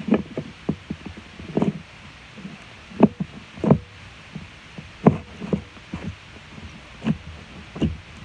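Glitter slime being pushed and squished down into its jar by hand: irregular soft squelching thumps, about a dozen, the loudest about three and five seconds in.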